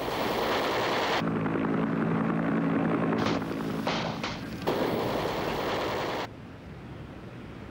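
Battle sound from combat footage: a dense rush of noise with a steady engine-like drone from about a second in until nearly five seconds, falling quieter about six seconds in.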